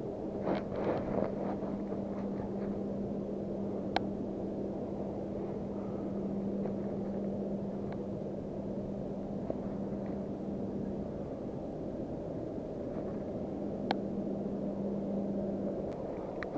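Spinning reel cranked through a lure retrieve: a steady low whir that stops near the end, over a steady rushing background noise, with two sharp clicks about ten seconds apart.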